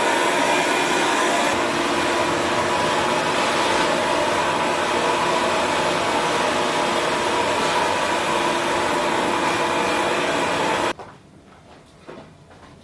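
A loud, steady whirring motor with a constant whine, like an electric appliance running, that cuts off abruptly about eleven seconds in.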